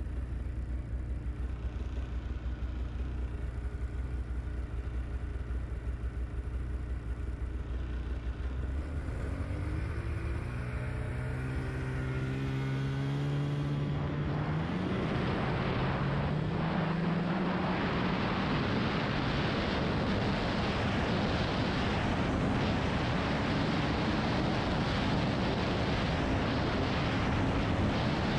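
Snowmobile engine idling steadily, then revving up with a rising whine as the sled pulls away about a third of the way in. After that it runs at speed under a loud, even rushing noise.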